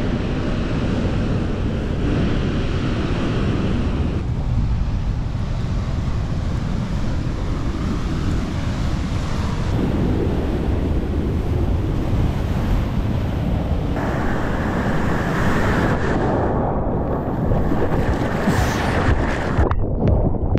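Breaking ocean surf, a steady rush of noise, with wind buffeting the microphone; its character shifts abruptly a few times. Near the end, short splashes of water close to the microphone.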